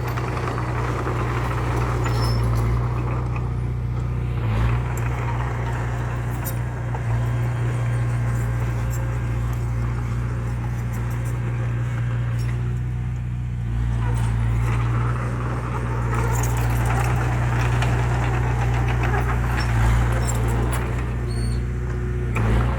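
Heavy diesel engine of earthmoving machinery running with a steady low drone, the higher part of the sound swelling and easing every few seconds.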